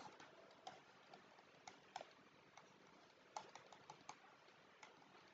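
Near silence broken by about seven faint, scattered clicks and taps from the pen or input device as a structure is drawn on a digital whiteboard.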